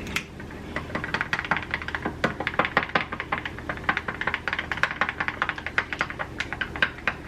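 A utensil stirring pancake batter in a bowl, clicking and tapping against the bowl's side in a quick, uneven patter as food colouring is mixed in.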